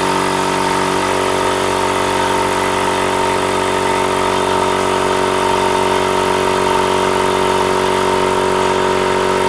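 Small direct-drive air compressor running and filling its tank, quite noisy: a steady drone with a thin high whine over it.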